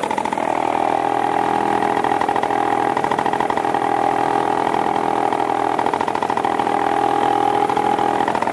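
Paramotor's two-stroke engine idling steadily on the ground before takeoff.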